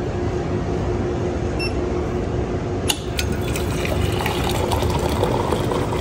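Hot water running in a steady stream from the Fetco coffee brewer's hot-water spout into a stainless steel pitcher as it fills.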